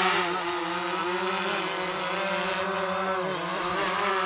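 DJI Phantom 3 Professional quadcopter's motors and propellers humming in flight, the pitch dipping briefly twice as the drone is flown forward and back.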